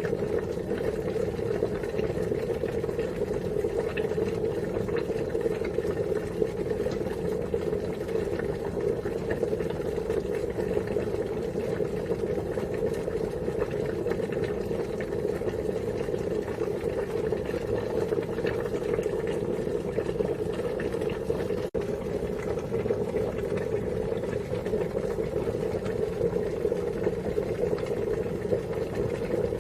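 Water boiling at a steady rolling boil, a continuous bubbling that breaks off for an instant about 22 seconds in.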